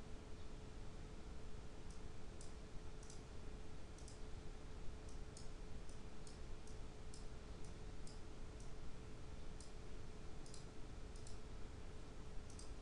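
Computer mouse button clicks, irregular and several in quick pairs, over a steady faint electrical hum and hiss.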